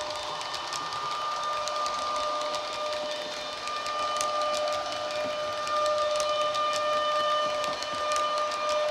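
Model Railjet train with DCC sound decoders running by, played through the onboard speakers: a steady high-pitched whine, louder from about six seconds in, with light irregular clicks of the wheels on the track.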